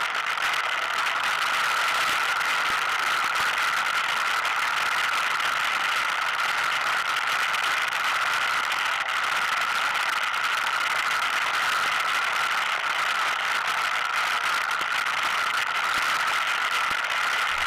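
Quad ATV engine running steadily as the quad drives along a dirt trail, picked up by a camera mounted on the machine; the pitch and level hold constant with no revving.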